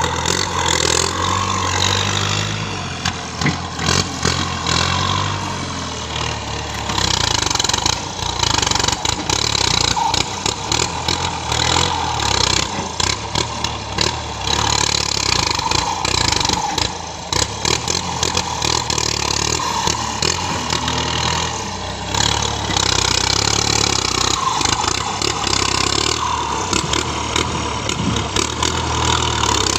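Engine running steadily, rising and falling in pitch now and then, with many sharp knocks and clatters over it.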